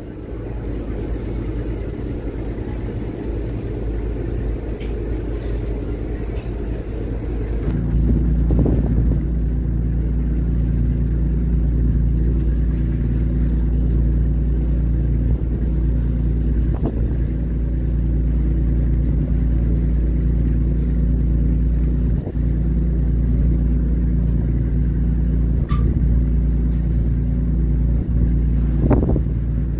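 Riverboat's diesel engine running under way, a steady low drone of several held tones with some wind and water noise. About eight seconds in the drone gets louder and steadier.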